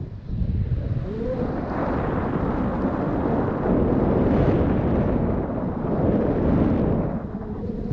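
Wind buffeting the microphone: a loud, rushing rumble that comes in gusts, easing briefly just after the start and again near the end.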